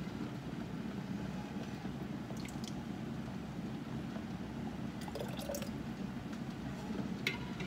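Hot spaghetti sauce being ladled and scraped from a stockpot through a canning funnel into a glass mason jar, with a few light clinks, over the steady sound of a water bath canner at a boil.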